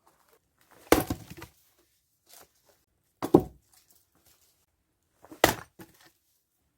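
Axe splitting firewood logs: three sharp chops about two seconds apart, each followed by a short trail of fainter knocks.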